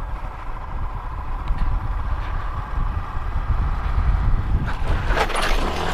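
Motorcycle running at low speed with wind rumbling on the helmet microphone; about five seconds in, a short burst of scraping and clatter as the bike goes down onto the curb.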